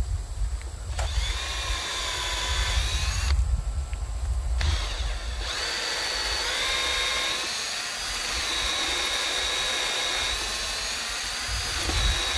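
Cordless drill working into pallet wood: a short run of about two seconds, a pause, then one long run of about eight seconds, the motor whine stepping up and down in pitch as it bears into the wood.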